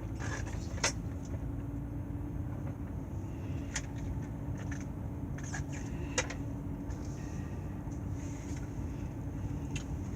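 Steady low rumble of a car heard from inside the cabin, with a steady hum and three faint clicks at about one, four and six seconds in.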